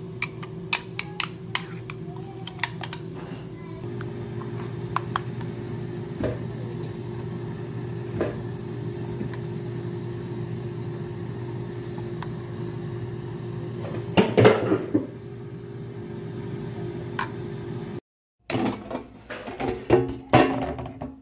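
A metal utensil clinks repeatedly against a glass bowl, mixing spinach and egg, over a steady low hum. A louder burst of knocking comes about two-thirds of the way through. Near the end, after a brief silent cut, the plastic air fryer basket clatters as it is pulled out and handled.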